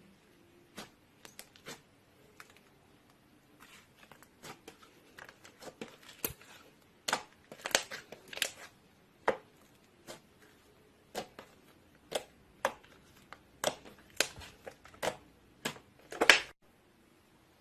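Slime being handled: irregular sticky clicks and pops, sparse at first and then denser and louder through the second half.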